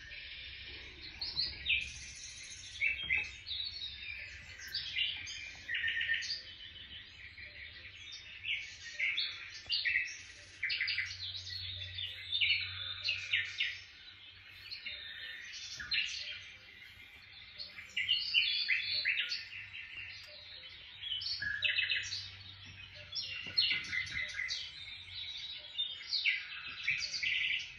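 Birds chirping and trilling, with many quick, high calls overlapping throughout.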